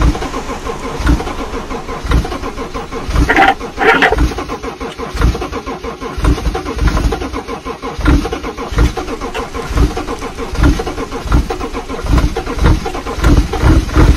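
A car engine being cranked on its starter again and again without catching, a sign of a car that won't start; the cranking pulses repeat evenly, with a short higher-pitched burst about three and a half seconds in.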